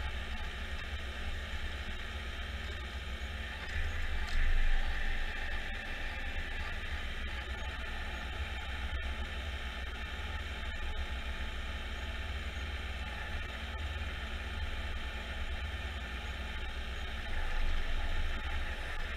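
Jarcrac Dual small tracked forwarder's engine running steadily while its Nisula/FTG P30 crane loader works the hydraulics, lifting a pulpwood log onto the load. It gets louder for a moment about four seconds in, and there is a single sharp knock about nine seconds in.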